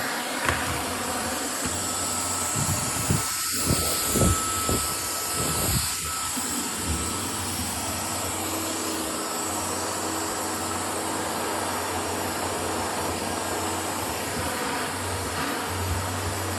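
Dyson vacuum cleaner running steadily with a high whine, with a cluster of short low thumps in the first half.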